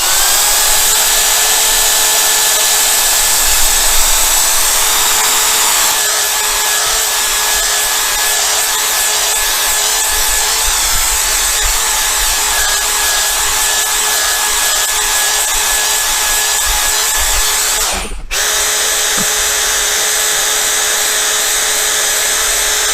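Electric drill running steadily at one speed, spinning a polishing pad that works cerium oxide compound over a hazy windscreen. It stops for a moment about 18 seconds in and starts again at once.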